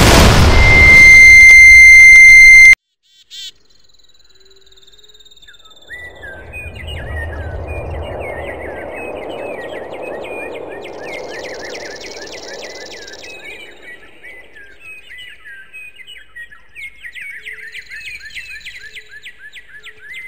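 An explosion sound effect, followed by a loud steady high-pitched ringing tone like ringing ears that cuts off suddenly after about two and a half seconds. After a short silence, a soft rushing hiss rises, with birds chirping rapidly over it to the end.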